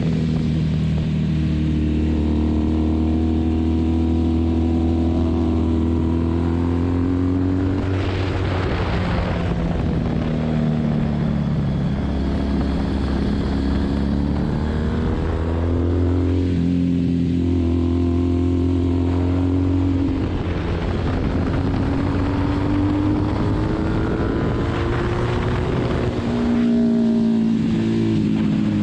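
Motorcycle engine running hard on a track lap, its pitch climbing and then dropping several times as it accelerates, shifts and slows for corners, with steady wind rush over the onboard camera.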